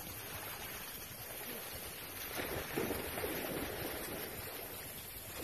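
A black puppy digging in sand with its front paws, the sand scraping and scattering, louder for about a second in the middle. Steady wind noise on the microphone runs underneath.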